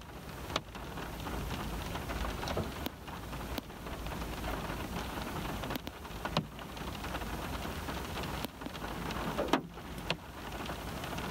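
Rain falling on a car's windows and body, heard from inside the parked car: a steady patter with a sharper drop hitting every second or two.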